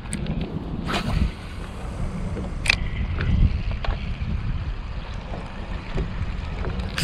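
Wind buffeting the microphone over water lapping against a small fishing boat, with a few scattered sharp clicks and knocks, the clearest about a second in and near the three-second mark.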